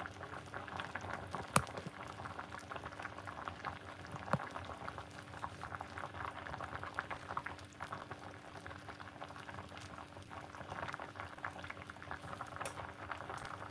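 An aluminium pot of vegetable broth boiling steadily on the hob, a dense fizzing bubble and pop, as the liquid comes to the boil ready for the cornmeal. A faint steady hum sits beneath it, and there is one sharp click about a second and a half in.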